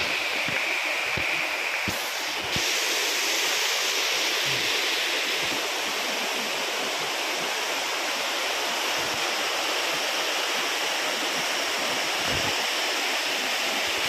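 Waterfall cascading down tiers of rock: a steady, unbroken rush of falling water.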